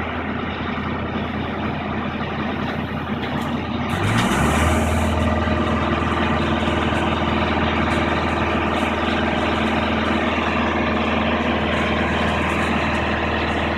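Heavy diesel engine of a long-reach demolition excavator running steadily, its rumble growing louder about four seconds in as the machine works, with a brief rush of falling rubble at that moment.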